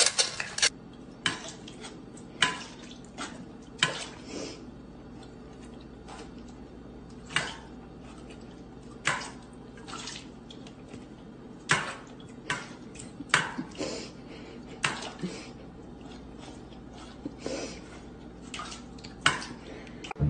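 A dog eating dry kibble from a food bowl: irregular clinks and crunches of kibble and bowl, a few every couple of seconds.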